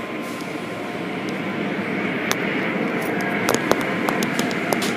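Automatic car wash machinery running: spinning brushes and water spray make a steady rushing noise, with a few sharp knocks and slaps scattered through it.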